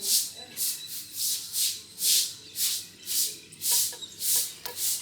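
Rhythmic scraping strokes, about two a second, each a short hissy rasp.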